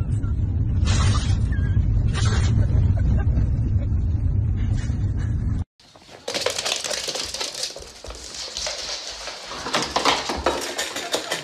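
Husky vocalizing in short loud outbursts over the low rumble of a moving car's cabin. After an abrupt cut, a dog's claws clatter in quick clicks and scuffs as it runs across a laminate floor.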